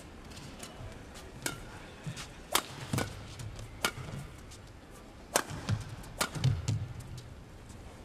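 Badminton rally: sharp cracks of rackets striking the shuttlecock, about six, roughly a second apart, starting about a second and a half in. Dull thuds of the players' footwork on the court run between the strokes.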